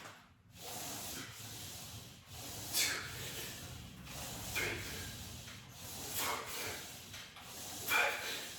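A man breathing hard and rhythmically while exerting through a set of exercise reps. There are four forceful breaths, about one every second and a half.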